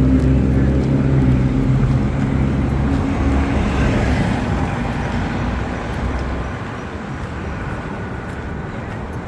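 Street traffic: a vehicle engine's low steady drone that fades out over the first six seconds or so, leaving the even rush of passing cars.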